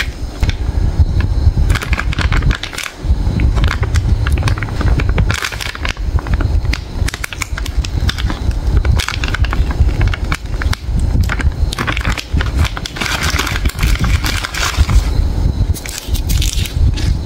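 Plastic snack-pack bag crinkling and tearing as a KitKat value pack is opened and the wrapped bars are pulled out: a dense run of crackles over a low rumble of handling.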